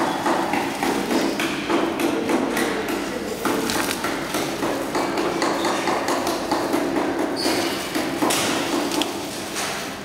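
Clear plastic shrink film rustling and crinkling as it is pulled and threaded by hand through the film rollers of an L-bar sealing machine, with scattered knocks and taps throughout.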